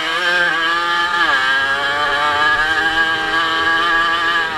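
Racing motorcycle engine heard from the rider's helmet camera, running hard at high revs on a dirt track. Its pitch drops about a second in, then holds steady, with wind noise over the microphone.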